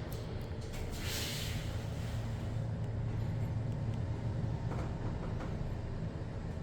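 Inside a Hyundai WBHS-GX gearless traction elevator car as it rides: a steady low rumble, a little louder from about two seconds in, with a brief hiss about a second in.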